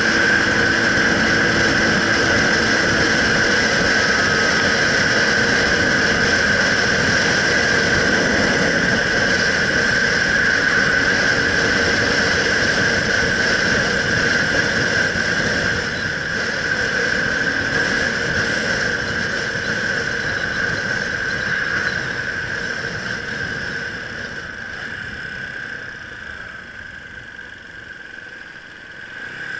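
Motorcycle riding at speed, heard from the bike: engine and wind noise with a steady high whine, easing off and getting quieter over the last several seconds as the bike slows.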